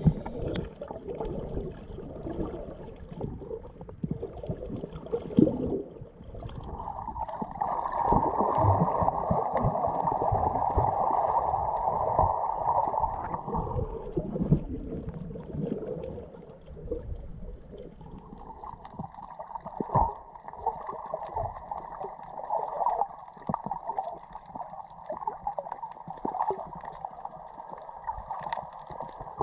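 Underwater sound picked up by a camera in its waterproof housing: muffled gurgling and sloshing of water with scattered small clicks, and a steady mid-pitched drone that swells up for several seconds twice.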